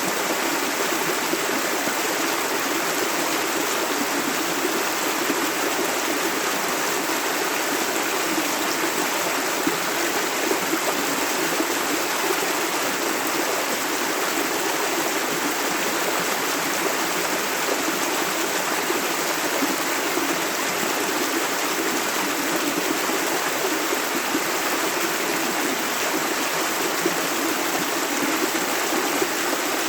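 Shallow river water running and burbling over stones, a steady, unbroken rush.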